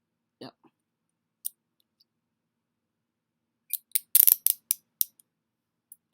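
Steel Peerless Model 300 handcuffs clicking and rattling as they are worked: one sharp click, then a quick run of metallic clicks a few seconds in.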